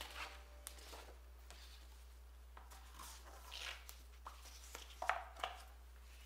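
Paper being handled by hands in plastic gloves: a card freshly cut from a sheet is lifted out and set down on a cutting mat, with soft rustles and light taps, the loudest cluster a little after five seconds in.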